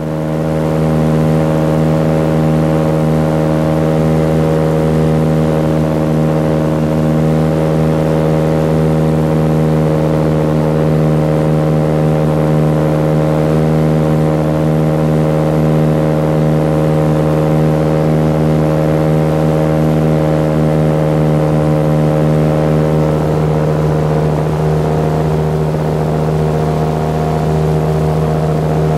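Light aircraft's piston engine and propeller running steadily in cruise flight, heard from aboard the plane.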